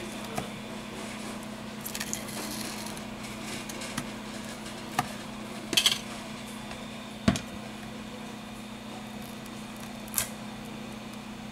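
Scattered clicks and knocks of a tablet's plastic housing and display frame being handled and pulled apart, about six separate taps with the loudest a little past halfway, over a steady low hum.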